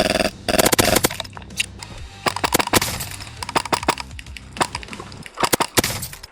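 Airsoft guns firing: a string of sharp, irregular cracks, in quick runs shortly after the start and again near the end.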